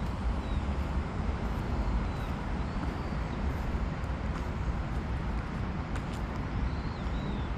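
Steady low rumble of road traffic in the outdoor background, with a few faint high chirps.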